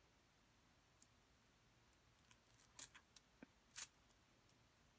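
A few faint scissor snips, about three to four seconds in, cutting into a squishy stress ball; otherwise near silence.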